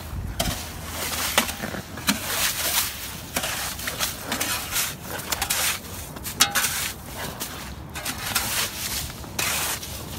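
Ice shavings and slush crunching and scraping in irregular strokes as they are cleared from a freshly augered ice-fishing hole, with a few sharp clicks.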